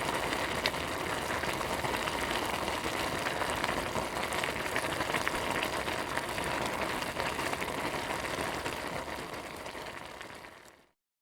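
Food sizzling in a frying pan: a steady hiss dotted with fine crackles, fading out near the end.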